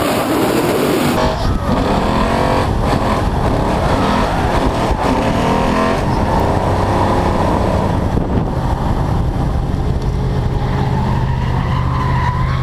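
V8 engine of a Ford Mustang RTR drift car heard onboard, running hard at high revs and swinging up and down while drifting. Over the second half the revs hold steadier, then climb slowly near the end.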